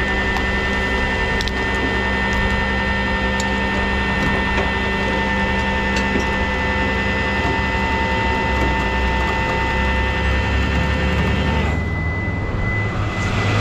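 Rollback tow truck's hydraulic winch pulling a wrecked car up the tilted bed. The engine drone carries a steady whine at one pitch; it cuts back near the end as the winch stops.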